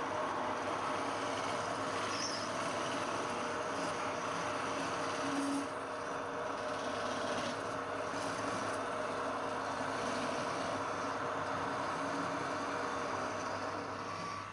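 Wood lathe running steadily with a constant hiss, its level dipping slightly about halfway through.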